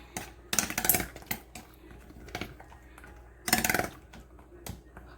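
A utensil stirring a thick mix of condensed milk and crushed Oreo in a bowl, clattering and scraping against the bowl in irregular bursts, the longest about a second in and again past three seconds.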